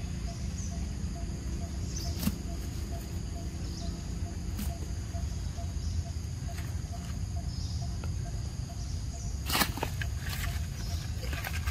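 Outdoor forest ambience: a steady low rumble under steady high tones and a faint regular ticking, with a few sharp clicks. About nine and a half seconds in comes a louder burst of crackling rustle.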